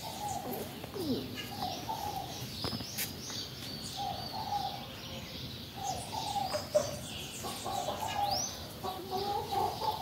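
Backyard hens clucking in short repeated bouts, with small birds chirping higher up and a rising whistle near the end.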